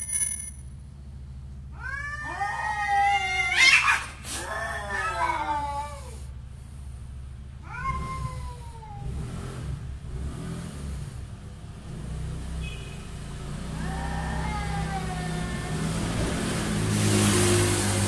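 Two street cats caterwauling at each other in a territorial standoff: long, wavering yowls, loudest a few seconds in, then a shorter yowl about eight seconds in and fainter ones near the end.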